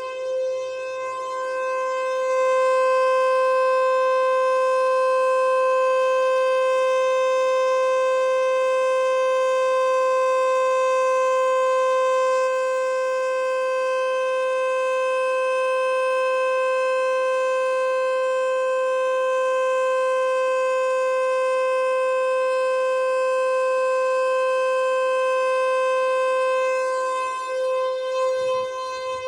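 Federal Signal Eclipse 8 electronic outdoor warning siren sounding a steady tone at one unchanging pitch during a siren test. It gets a little louder about two seconds in and wavers near the end.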